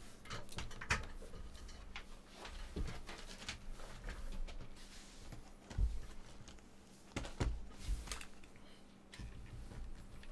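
Sealed, shrink-wrapped cardboard trading-card boxes being handled and set down on a tabletop: scattered light clicks and knocks, with a few soft thumps as boxes are put down, the firmest about six seconds in and two more shortly after.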